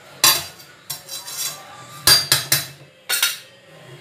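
Long metal spatula scraping and clanking against a wide metal pan while stirring chicken, about six strokes spread out over a few seconds.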